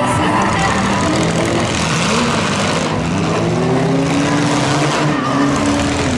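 Demolition-derby car engines revving as the cars push against one another, their pitch rising and falling over one another.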